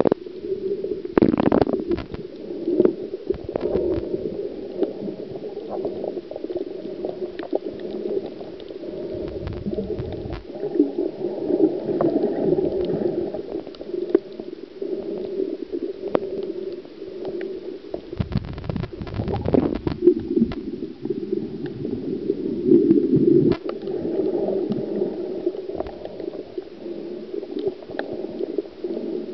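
Muffled underwater gurgling and bubbling picked up by a camera underwater, with a few louder bubble bursts about a second in and again past the middle, as from a scuba diver's exhaled breath.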